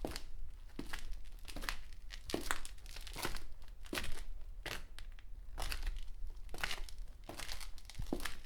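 Footsteps walking on a gritty concrete sidewalk at a steady pace, about two steps a second, each step a short scuffing crunch of grit underfoot.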